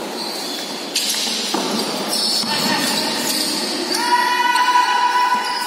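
Basketball bouncing on a concrete court in a large echoing hall, with players' voices. A couple of sharp knocks come early, and about four seconds in a steady high-pitched tone holds for about a second and a half.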